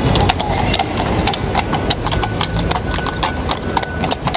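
Several horses walking, their hooves clip-clopping in many quick, uneven strikes.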